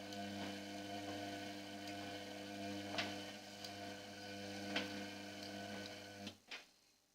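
Indesit washing machine humming steadily, with a few sharp clicks; about six seconds in the hum cuts off suddenly with two clicks and the machine goes quiet.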